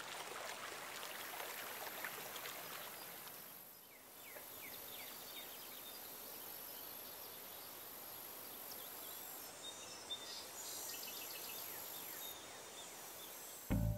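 Outdoor lakeside ambience: a steady background hiss with scattered short bird chirps. Music cuts in just before the end.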